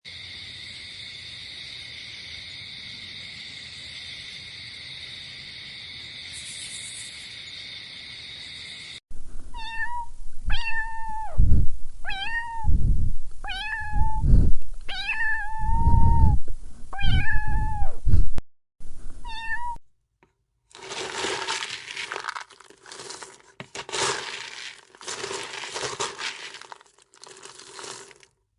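A cat meowing about seven times in a row, each meow rising and then falling in pitch. Before it there is a steady high buzz, and after it a rougher, noisier sound in patches.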